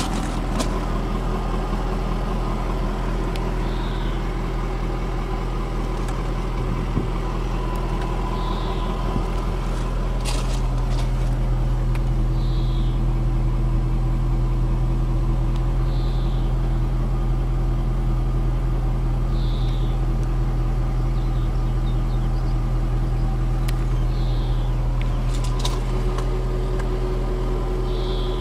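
The Jaguar XF R-S's 5.0-litre supercharged V8 idling steadily, heard from inside the cabin: a low, even hum that gets a little louder about ten seconds in. A faint short high chirp repeats every three to four seconds over it.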